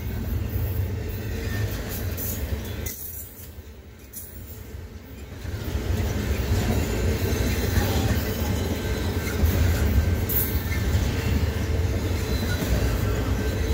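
Double-stack intermodal freight cars of a BNSF train rolling past, a steady rumble and clatter of steel wheels on rail. It drops off noticeably about three seconds in and comes back up around six seconds.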